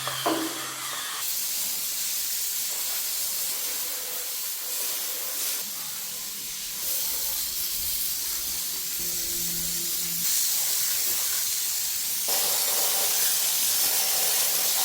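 A steady hiss, like spraying or rushing air or water, with its level shifting a few times.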